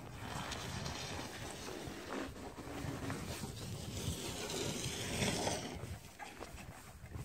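Footsteps crunching through snow over a steady outdoor background noise.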